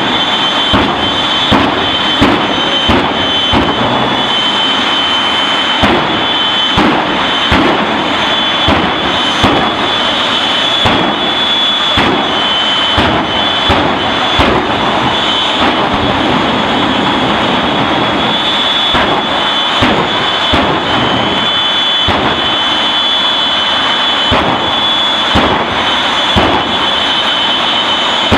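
Loud, steady jet engine noise with a high whine held on top and frequent sharp crackles throughout.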